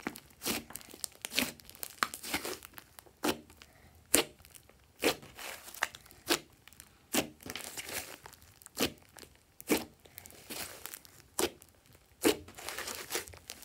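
Thick slime being kneaded and pressed by hand: a string of sharp, irregular pops and crackles as trapped air is squeezed out of the folds, about one every half second to a second.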